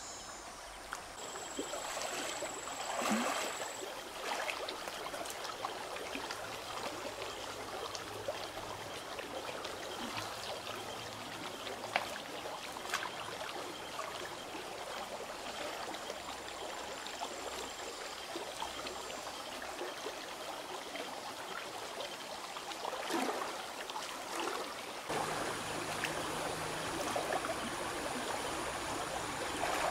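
Shallow river water flowing steadily, with the sloshing and occasional sharper splashes of a person wading knee-deep through it.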